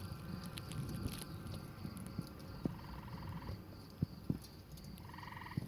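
Faint outdoor ambience: an animal's short, rapidly pulsed trill, heard twice, over a low steady rumble, with a few sharp clicks.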